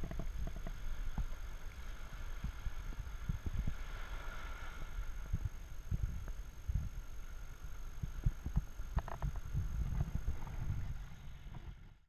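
Wind buffeting an action camera's microphone in low, irregular thumps, over a faint wash of surf; it fades out near the end.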